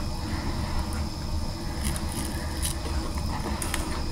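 Person chewing a mouthful of Subway sub sandwich, with scattered soft, wet mouth clicks over a steady low hum.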